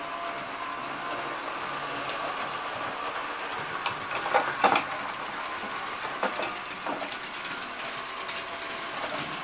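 S-Helper Service S-gauge model diesel locomotive and its freight cars running around a small loop of track: a steady whirring of motor and gears. A cluster of louder clicks and clacks comes about four to five seconds in, with a few single clicks after.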